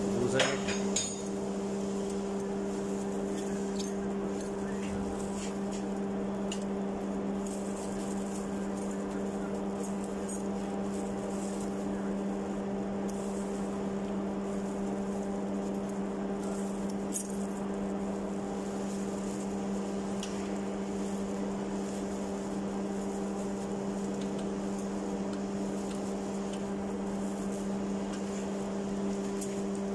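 Steady machinery hum, even and unchanging, with a few light metal clinks as a globe valve is dismantled by hand in a vise, the loudest just after the start.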